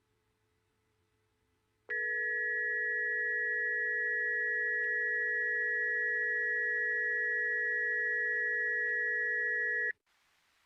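Emergency Alert System attention tone: a steady, unwavering electronic two-tone signal that starts abruptly about two seconds in, holds for about eight seconds and cuts off sharply. It marks the start of an emergency alert broadcast.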